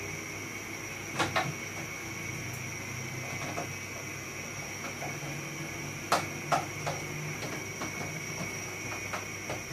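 Sharp clicks and knocks of a screwdriver and hands working on the plastic casing and screws of a split-type air conditioner indoor unit: a pair just over a second in, a louder pair around six seconds in, then lighter scattered clicks, over a steady high hum.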